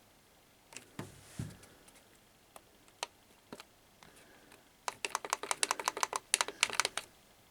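Typing on a computer keyboard: a few scattered keystrokes and a low thud, then a quick run of rapid keystrokes near the end.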